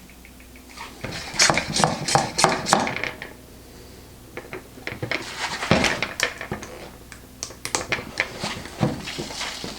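Hands working a plastic balloon-tying tool and balloon: irregular clusters of sharp clicks and rattles, starting about a second in and again from about five seconds in.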